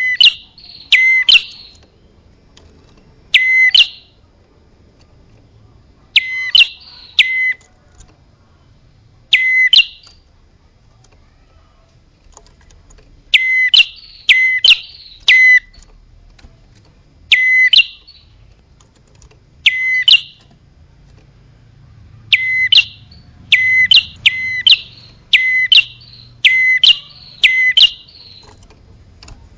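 Prinia (prenjak) calls from a bird-lure recording: loud, short, sharp high notes, singly or in quick runs of two to six, with pauses of a second or two between runs.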